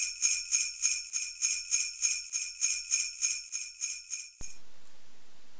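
Jingle bells shaken in a steady rhythm, about three shakes a second, bright and high. They stop suddenly about four and a half seconds in.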